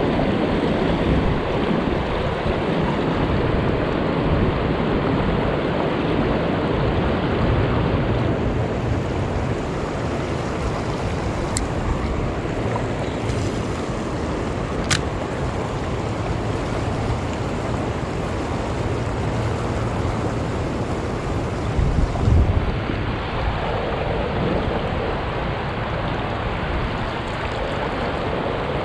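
Steady rush of the New River's current flowing around the wading angler, mixed with wind buffeting the microphone, with a brief low buffet about three-quarters of the way through.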